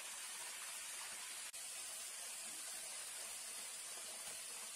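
Oil sizzling steadily as small whole fish deep-fry in a wok, with a brief dropout about a second and a half in.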